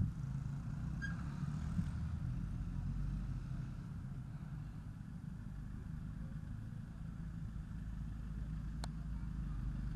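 Motor traffic: a steady low engine rumble of cars, with a single sharp click near the end.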